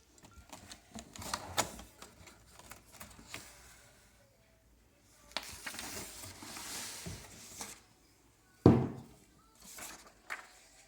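Handling noises from unpacking a box of wine bottles: scattered light clicks and taps, a rustle of packaging lasting a couple of seconds in the middle, and one heavy knock a little under nine seconds in.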